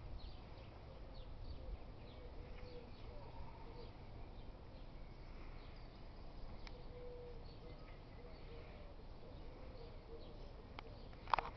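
Faint bird chirps, short and scattered, over a low outdoor rumble, with a sharp click near the end.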